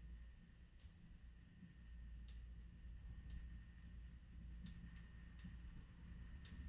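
Faint, sparse computer mouse clicks, about eight, some in quick pairs, over a low steady hum.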